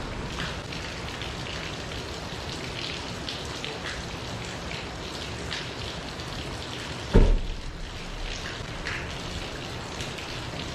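Wood fire crackling in a small B6-kun fire pit: a steady hiss with scattered sharp pops. A single loud low thump comes about seven seconds in.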